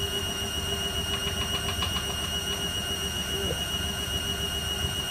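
Servis 308S washing machine running its cotton wash: a steady motor hum and low rumble of the turning drum, with a short run of rapid ticks about a second in.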